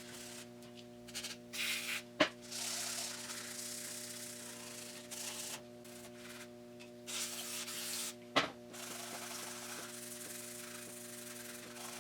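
Short stretches of hand scrubbing with an abrasive pad and WD-40 on a cast-iron engine block's deck, over a steady hum. Two sharp knocks about six seconds apart.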